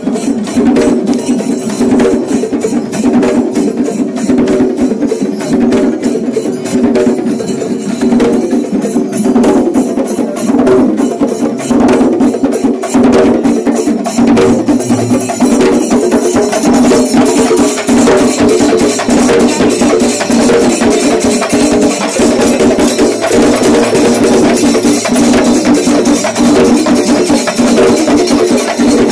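Kerala temple percussion ensemble (chenda melam) drumming loudly, with dense, rapid strokes that go on without a break.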